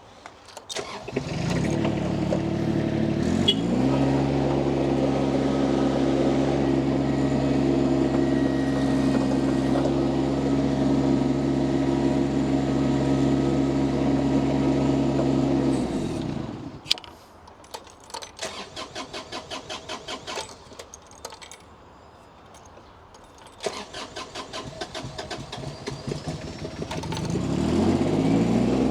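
A mini skid steer loader's engine starts, picks up speed and runs steadily, then winds down and stops. After that it is cranked by the starter with a rapid, even chatter twice, and it catches and settles into a steady run near the end.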